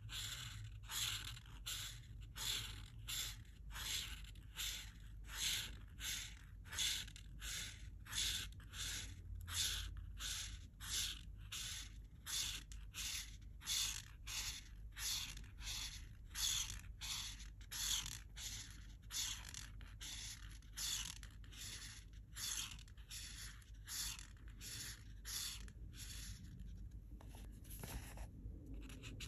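Art marker nib scraping across paper in steady back-and-forth colouring strokes, about two a second. The strokes fade out near the end.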